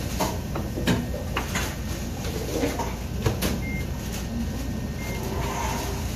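Bakery work noise: a steady low hum from the exhaust ventilation, with scattered knocks and clatter from trays and tools at the oven.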